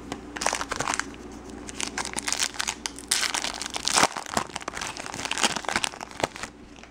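Foil wrapper of a 2013 Topps Mini baseball card pack crinkling in the hands as it is torn open, in irregular crackling bursts that are loudest in the middle and stop shortly before the end.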